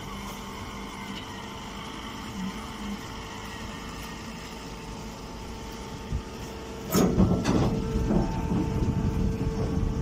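Straw baling machine running with a steady mechanical hum. About seven seconds in, a loud burst of irregular rustling and knocking starts and carries on as a bagged bale of straw is pushed out of the baler and handled.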